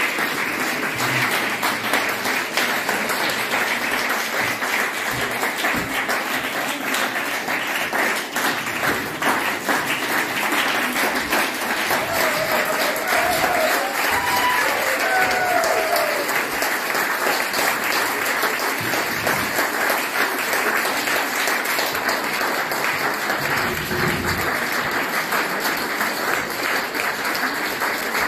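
Audience applauding steadily, with a few voices calling out about halfway through.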